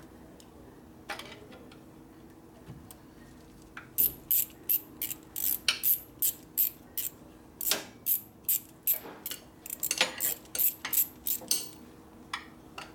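Hand ratchet clicking in quick back-and-forth strokes, about three a second, as a screw-type hose clamp is tightened down. A few scattered clicks come first; the run of strokes starts about four seconds in and stops shortly before the end.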